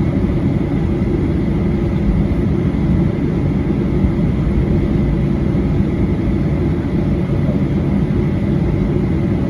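Steady cabin noise inside a Boeing 737-800 airliner: a constant low rumble of the engines and airflow, with a faint steady high tone above it.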